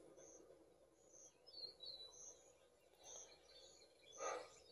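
Faint birds chirping in the soundtrack of a TV wildlife documentary: a string of short high chirps about once a second, with a few quick warbling calls near the middle.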